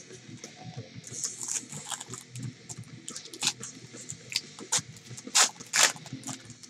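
Plastic wrappers of football trading-card packs crinkling and being torn open, with a rapid run of crackles and two louder rips a little after five seconds in.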